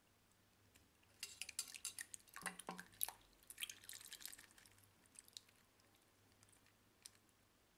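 Tap water splashing and dripping onto a smartwatch held in a sink, a busy run of splashes for a few seconds, then a few scattered drips.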